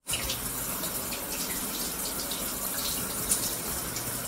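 Running shower water: a steady hiss with a few faint splashes.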